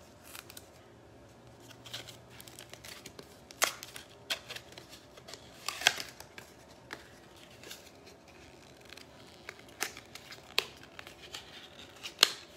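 Paper and plastic packaging being handled and torn open: irregular crinkling and rustling, with a few louder sharp snaps.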